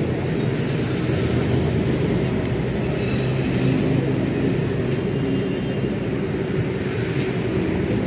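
Motorcycle engines running steadily at low speed, a continuous low drone.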